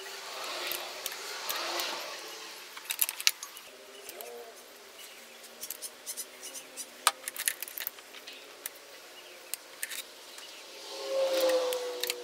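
Irregular metallic clicks and clinks of a torque wrench and socket tightening the exhaust manifold nuts on a Z20LET engine, with sharper clicks about 3 and 7 seconds in. A brief louder swell comes near the end.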